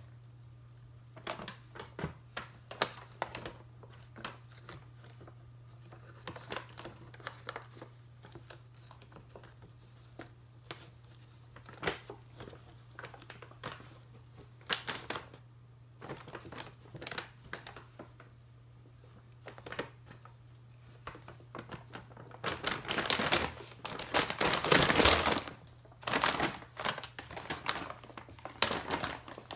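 Paper bag crinkling and rustling in scattered bursts as a cat moves about in it, with a longer, louder stretch of crinkling a little past two-thirds of the way through, over a steady low hum.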